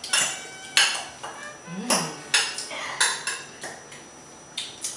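Metal fork and spoon clinking against a ceramic salad bowl as a salad is tossed. The clinks are sharp and irregular, roughly two a second, each with a brief ring.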